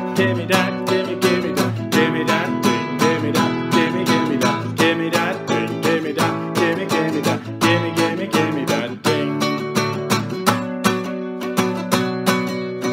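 Acoustic guitar strummed in a steady rhythm of chords, about four strums a second.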